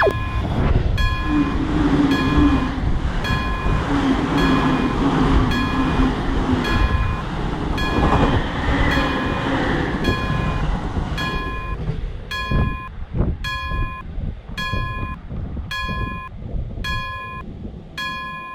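Japanese level-crossing alarm ringing 'kan-kan' about twice a second while a train passes, its rumble and wheel noise loud at first and dying away about two-thirds of the way through, leaving the crossing bell ringing on with a few last wheel knocks.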